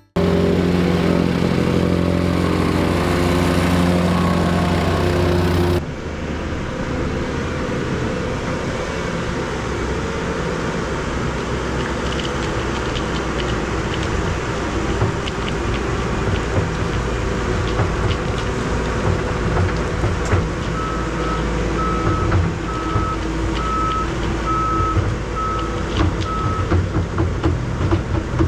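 Heavy vehicle engine running, louder and steadier for the first six seconds before an abrupt change, with a reversing alarm beeping evenly at one pitch for several seconds near the end.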